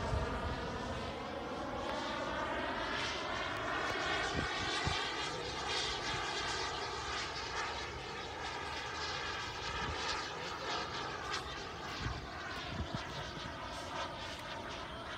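Radio-controlled model airplane flying high overhead: the steady whine of its motor and propeller, its pitch drifting slowly up and down as it passes, gradually fading toward the end.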